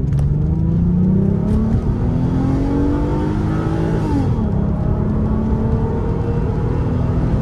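Hyundai Coupe's 2.7-litre V6 at full throttle, heard from inside the cabin during a 0–100 km/h acceleration run. The revs climb in first gear, drop at the upshift to second about four seconds in, then climb again.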